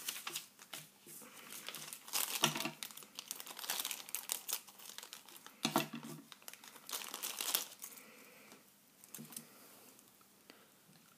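Clear plastic wrapper and paper leaflet from a toy blind bag crinkling and rustling as hands unwrap a small figure charm, in irregular bursts that thin out after about eight seconds into a few light ticks.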